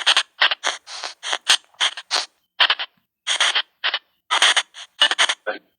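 Spirit box white noise app sweeping: short, chopped bursts of static, several a second and irregularly spaced, with silent gaps between them.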